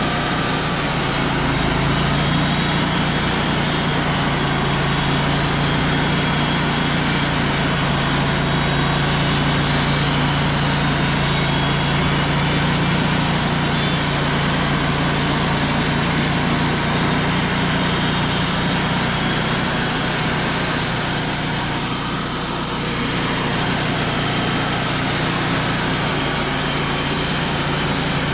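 Wood-Mizer LT35 portable band sawmill running steadily with a low engine hum, dipping briefly about 22 seconds in.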